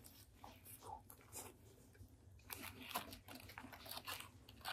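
Faint, irregular crunching as a bite of crispy Korean fried chicken is chewed, the crunches coming thicker in the second half.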